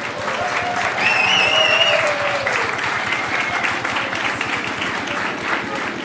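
Applause, with a brief high whistle and raised voices about a second in.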